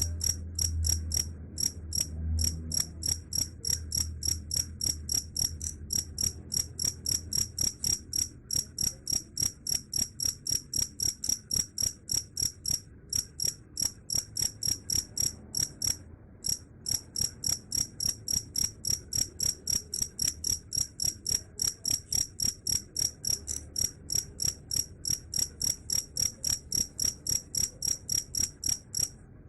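Cricket chirping in a fast, even rhythm of about three short, high chirps a second, broken by a few brief pauses.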